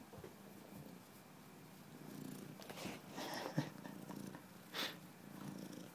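Domestic cat purring steadily while being petted, close to the microphone, with a couple of brief rustles about three and five seconds in.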